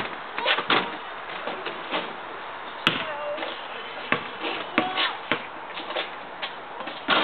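Basketball bouncing on an asphalt driveway: a string of separate sharp thuds at uneven spacing as the ball comes down and is dribbled a few times.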